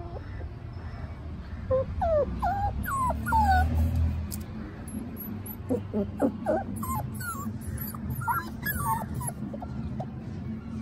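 Puppies whimpering in short, high, sliding whines, one cluster about two seconds in and another from about six seconds in.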